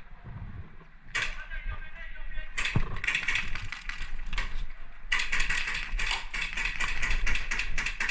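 Airsoft electric gun firing in bursts: rapid mechanical clicking of its gearbox and shots, in short clusters and then a longer run of fire from about five seconds in.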